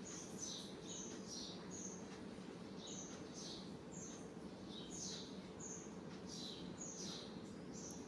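A small bird chirping faintly and repeatedly: short high calls, about two a second, each dropping in pitch. Under it runs a faint steady low hum.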